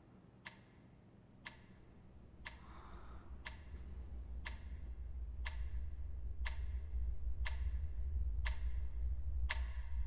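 A clock ticking, one tick a second. Underneath, a deep low drone swells up from about two seconds in and stays loud.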